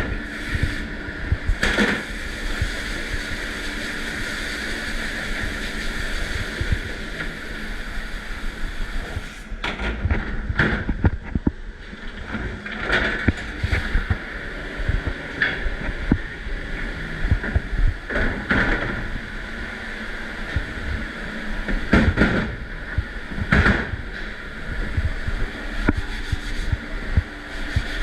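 Steady rush of spraying water and machine noise from a commercial dishwashing station, broken by repeated clatters of dishes and racks, loudest around the middle and again near the end.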